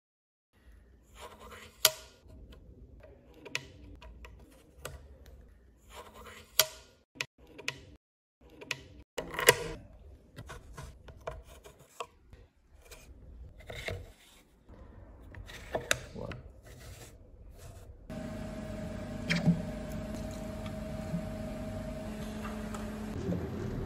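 Hands handling plastic damper test parts: scattered sharp clicks and knocks with rubbing between them. About two-thirds of the way through, a steady hum with a low held tone comes in and continues under further knocks.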